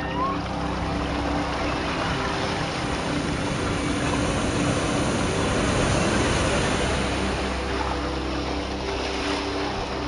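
Sea waves washing in at the shoreline, swelling to a peak about six seconds in as a wave breaks close by.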